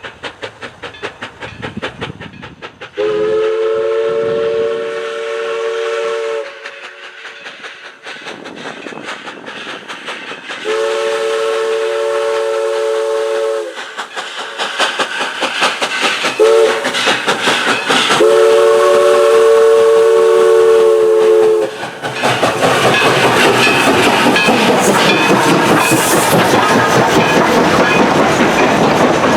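Narrow-gauge 2-8-2 steam locomotive No. 16 working with rapid exhaust beats, then blowing its chime whistle in two long blasts, a short one and a long one: the grade-crossing signal. About two-thirds of the way in, the train passes close by with a loud, steady rumble and clatter of running gear and wheels on rail.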